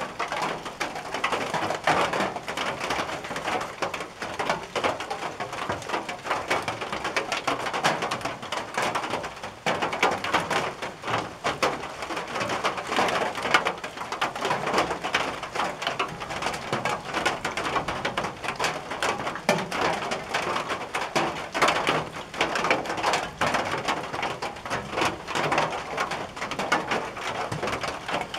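Rain pattering on a tin roof: a dense, steady clatter of drops.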